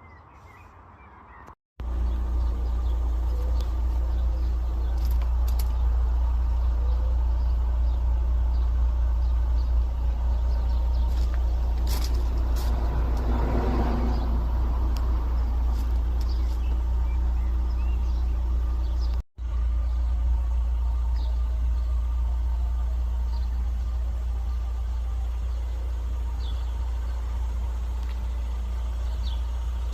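Car engine idling steadily, a low even hum that starts about two seconds in and breaks off briefly about two-thirds of the way through.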